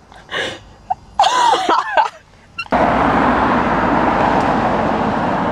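A brief voice sound and a short exclamation, then from a little under three seconds in a sudden, steady rushing noise of a car moving along the highway, heard from the car.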